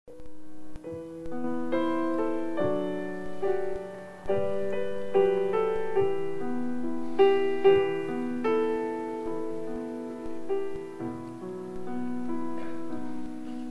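Solo piano playing a slow introduction of held chords under a simple melody, opening a musical-theatre song.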